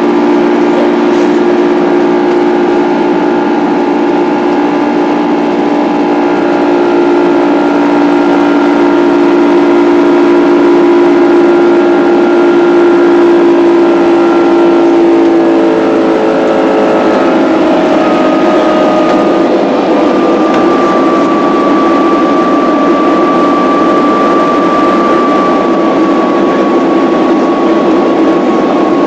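Boeing 767 jet engines running at climb power, heard inside the passenger cabin as a loud steady roar with several held tones; about halfway through the tones shift in pitch and a higher whine comes in and drifts slightly lower.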